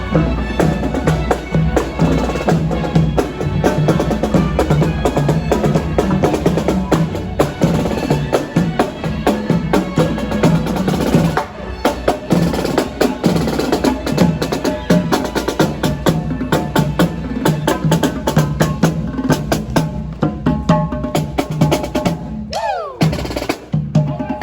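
Music with a steady beat of drums and percussion, briefly dropping out about eleven seconds in and again just before the end.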